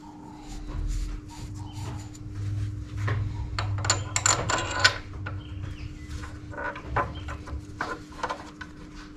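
Clinks, knocks and scrapes of hand tools and metal brake parts being handled while motorcycle front brake pads are fitted, busiest about four to five seconds in, over a steady low hum.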